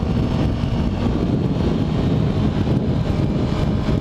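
Motorcycle engine running steadily while riding along the road, mixed with wind noise on the microphone.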